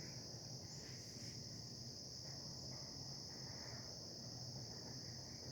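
A steady, unbroken chorus of insects, such as crickets, trilling high and faint in the woods.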